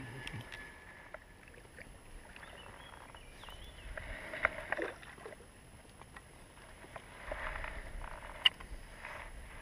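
Water splashing and sloshing in a few short spells, with light clicks and one sharp click near the end.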